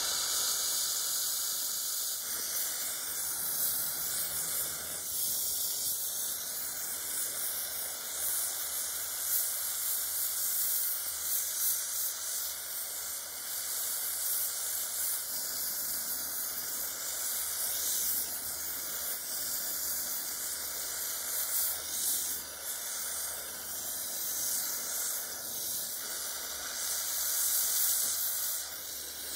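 Oxy-fuel torch flame hissing steadily as it heats brass parts.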